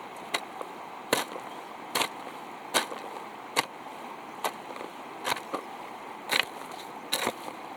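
A hand tool striking over and over at an even pace, about nine sharp blows, roughly one every 0.85 seconds, over a steady background hiss.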